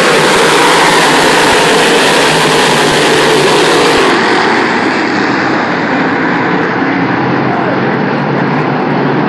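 A pack of big-block modified dirt-track race cars racing together, the combined din of many large V8 engines at speed. It grows duller and slightly quieter about four seconds in as the pack draws away down the far straight.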